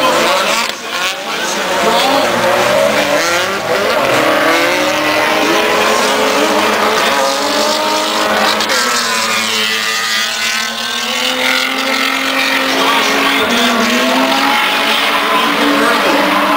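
Drift cars' engines revving up and down with tyres squealing as they slide, loud throughout with one brief dip about a second in.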